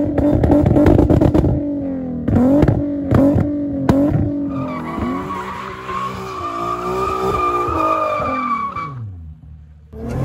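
Infiniti Q50 Sport on test pipes with a flame-map tune, its engine revving with rapid crackling exhaust pops. After about four seconds the revs fall away over several seconds under a high steady squeal, and the sound drops out briefly near the end.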